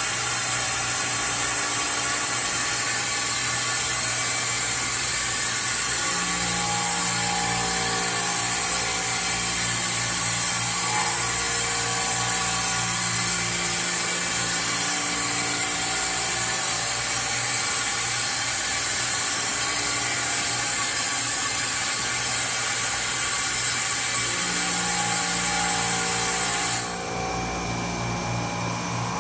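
Haas EC-400PP horizontal machining center running, with a loud steady high hiss and a low electric motor hum that comes and goes as the rotary pallet turns. The hiss cuts off suddenly near the end.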